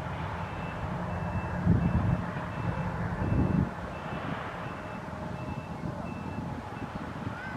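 A vehicle's reversing alarm beeping steadily, about two short high beeps a second, over a low background rumble that swells a couple of times.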